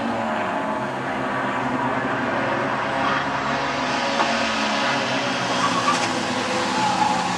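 Race car engines running on the circuit, a steady engine note that shifts a little in pitch.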